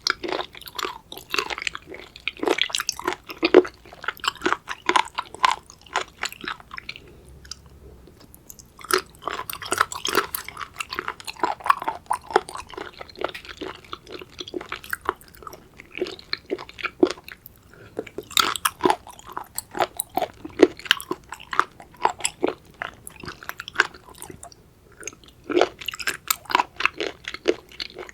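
Close-miked chewing of raw seafood: wet, crunchy crackling bites and chews in quick runs, broken by a couple of short pauses.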